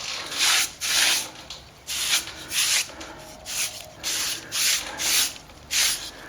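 A brush worked back and forth over fresh cornice cement on a textured plaster wall: repeated scratchy swishing strokes, about one and a half a second, blending the patch so the stucco texture disappears.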